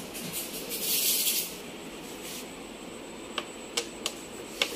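A brief rustling hiss about a second in, then a few sharp plastic clicks as a hand grips and works the handlebar of a hard plastic rocking rider toy.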